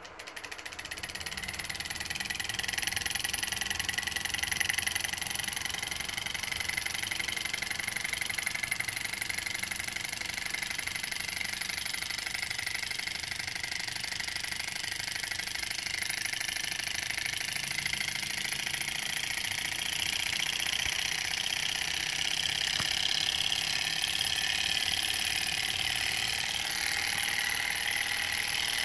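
Small Stirling engine running at a fast, steady rhythm while driving its phone-charging generator. It starts abruptly and builds up over the first couple of seconds, then holds steady, with a thin high whine throughout.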